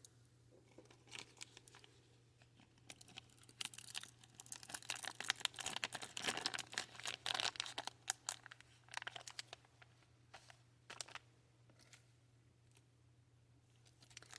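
Crinkling and rustling of small bead packets being handled and opened, with scattered light clicks. It is busiest in the middle and thins out near the end.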